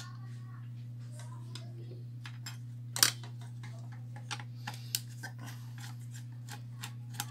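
Small clicks and scrapes of a screwdriver working the screws of a CPU heatsink retention bracket on a motherboard, with a sharper click about three seconds in. A steady low hum runs underneath.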